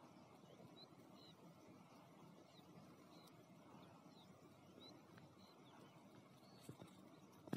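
Near silence: faint open-air ambience with a small bird's short, high chirps repeating about once or twice a second.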